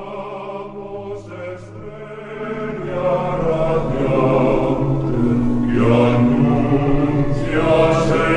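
Background music: choir-like voices singing slow, long-held chant notes, swelling louder about three seconds in.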